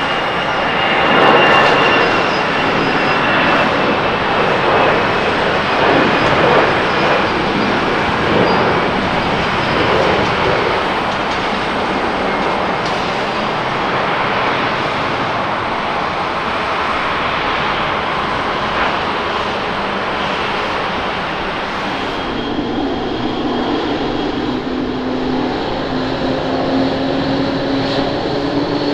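Airbus A320 jet engines at takeoff thrust, a steady loud rush as the airliner rolls and climbs out. About 22 s in this gives way to an Airbus A350-900 on the runway, its Rolls-Royce Trent XWB engines running with a whine that rises slowly in pitch.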